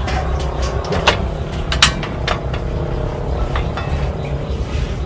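A steady low rumble, with a few sharp clinks and taps of cooking utensils about one and two seconds in.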